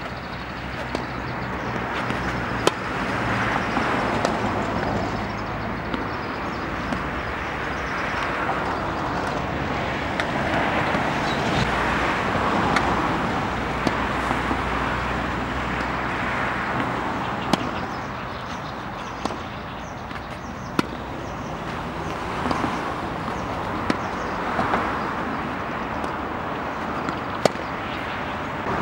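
Tennis ball struck by rackets in a baseline rally: a sharp pop every couple of seconds, over a loud, steady background rush that swells and fades.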